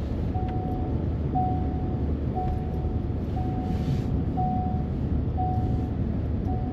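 A vehicle running with a steady low rumble, while an electronic warning beep sounds about once a second.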